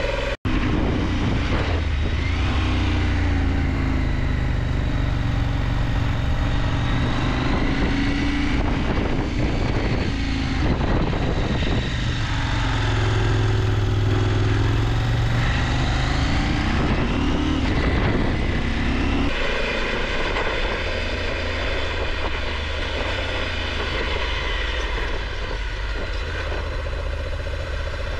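Motorcycle engine running, its revs rising and falling several times as the bike is ridden through slow, tight corners, then settling to a steadier, lower note about two-thirds of the way through. The sound drops out for an instant just after the start.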